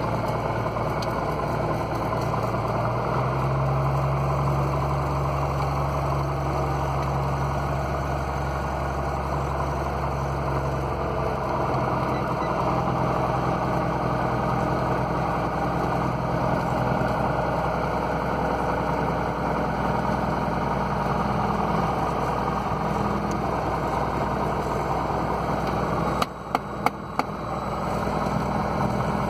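Piper Cherokee Six's six-cylinder Lycoming engine idling steadily after a cold-ish start, heard from inside the cockpit. The engine note shifts a little a few seconds in and again about eleven seconds in, and near the end there is a brief dip with a few clicks.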